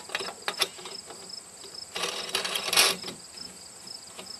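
Clicks and rattles of the HySkore Dangerous Game rifle rest's hardware being handled and adjusted by hand, with a louder scraping rattle about two seconds in that lasts about a second. Insects chirp steadily in the background.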